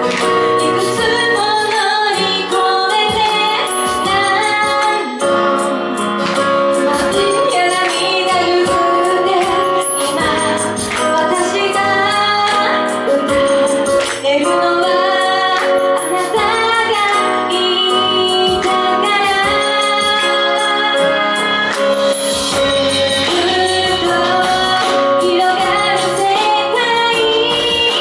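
A female vocalist singing a pop song with instrumental accompaniment.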